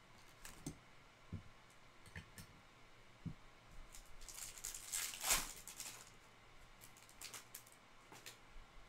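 Soft clicks and taps of trading cards being handled, with a louder rustling crinkle about four to six seconds in as a foil Topps Chrome card pack is torn open.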